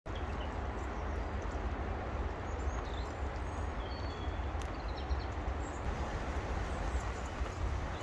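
Steady outdoor garden ambience: a low rumble and even hiss, with a few faint high bird chirps about two to six seconds in.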